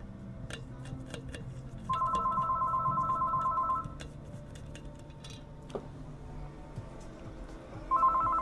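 Telephone ringing twice, a warbling two-tone ring: one ring of about two seconds, then a second ring starting near the end. A few light clicks come between the rings.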